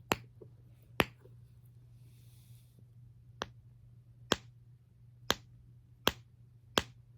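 Sharp clicks from a handheld fidget toy being worked, about seven of them, roughly a second apart and unevenly spaced.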